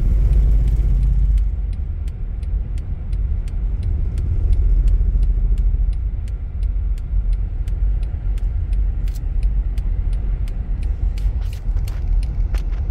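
Steady low rumble of road and wind noise inside a vehicle's cabin while driving through a dust storm. A light, regular ticking runs through it, about three ticks a second.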